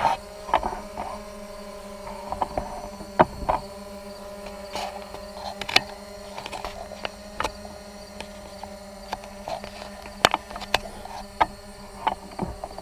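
Holy Stone HS700D quadcopter hovering, its propellers giving a steady hum. Many irregular sharp clicks and ticks sound over it.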